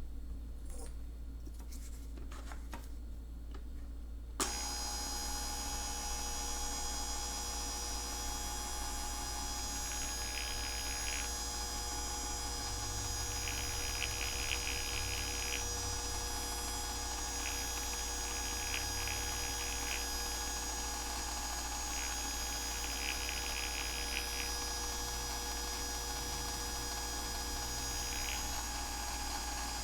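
Braun Multiquick Vario 5 hand blender switched on about four seconds in, its motor then running with a steady whine. A harsher rasping sound comes and goes several times over it, a couple of seconds at a time.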